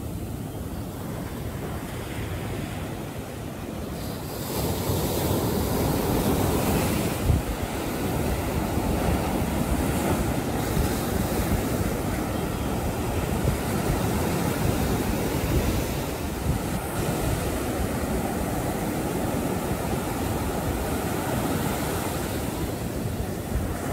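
Ocean surf breaking and washing up the beach, a steady rush that grows louder about four seconds in, with wind buffeting the microphone.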